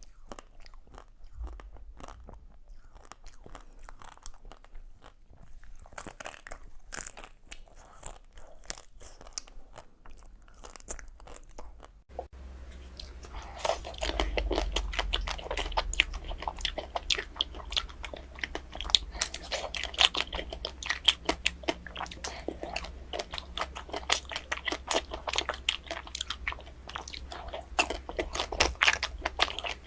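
Close-miked eating of ice cream: crunchy bites and chewing, a dense run of small crackling clicks. It is quieter for the first twelve seconds or so, then changes abruptly to louder, denser crunching.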